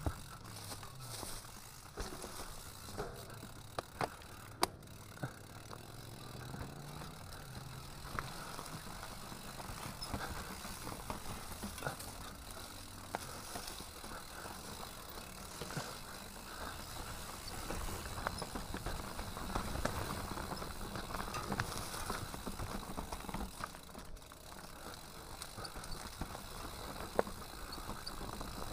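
Enduro mountain bike riding over a rough dirt and stone singletrack: tyre and trail noise with the bike rattling and many sharp knocks from bumps. It gets somewhat louder for a stretch about two-thirds of the way in.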